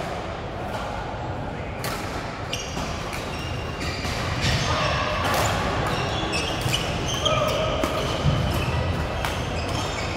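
Badminton play in a sports hall: sharp racket hits on the shuttlecock and shoes squeaking on the court floor, with hall echo and background voices from neighbouring courts.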